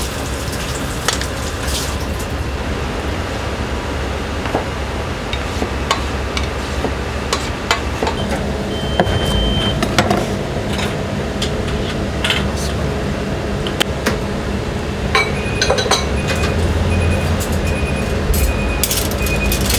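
Kitchen clatter: scattered clinks and knocks of dishes and utensils over a steady low rumble. A repeated high electronic beep, about two a second, starts near the end.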